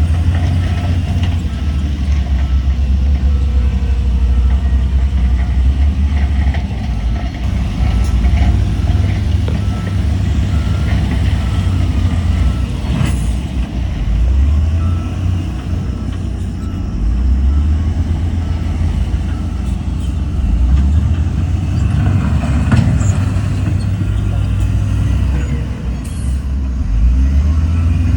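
Heavy diesel earthmoving machinery running under load, its deep engine rumble rising and falling in revs several times, with a few sharp knocks.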